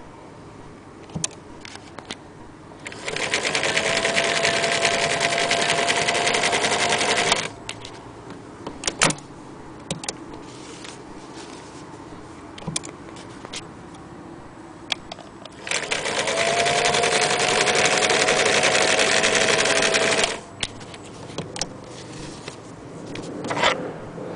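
Singer 306K electric sewing machine running in two bursts of about four to five seconds each, stitching through fabric with a fast, even clatter and a motor whine that rises slightly as it gets up to speed. Between the runs come scattered light clicks from handling the machine and fabric.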